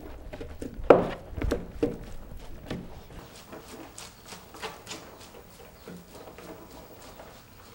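Rice paddle (shamoji) cutting through and spreading sushi rice in a wooden hangiri tub: sharp knocks of the paddle against the wooden tub in the first three seconds, then softer taps and scraping through the rice.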